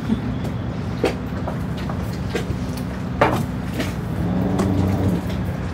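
A steady low mechanical hum, with a few sharp clicks and knocks scattered through it.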